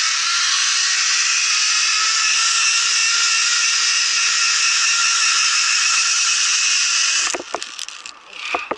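Zip-line pulley rolling fast along a steel cable, a loud steady whirring hiss. It cuts off about seven seconds in, with a few knocks and clicks as the rider arrives at the platform.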